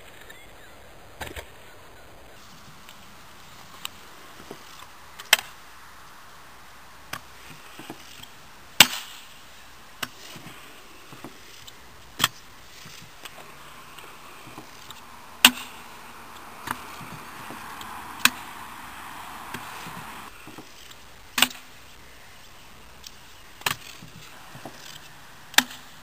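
Stunt scooter riding on a concrete skatepark: about a dozen sharp clacks of wheels and deck hitting the concrete, spaced irregularly a second or several apart. Between about sixteen and twenty seconds in, a longer stretch of hard wheels rolling over concrete.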